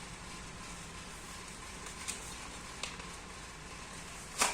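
Steady faint room tone with two light clicks and one sharper click near the end.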